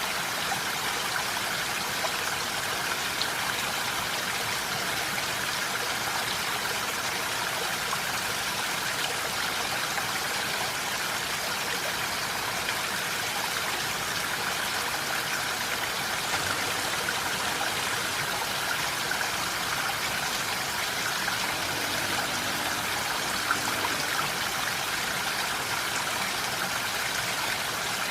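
Steady rain falling in a forest: an even hiss of water with fine patter of drops.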